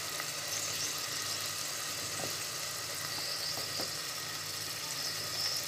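Chicken and onions frying in an aluminium pot, a steady low sizzle, with a couple of faint light taps in the middle.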